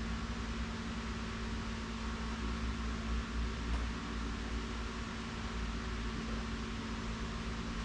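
Steady background hum and hiss, with one low steady tone underneath.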